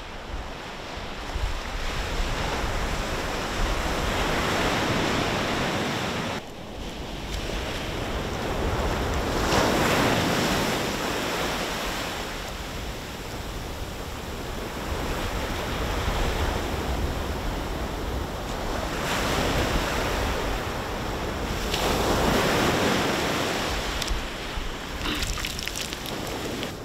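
Ocean surf breaking and washing up a sandy beach, swelling and fading about every six seconds, with wind rumbling on the microphone.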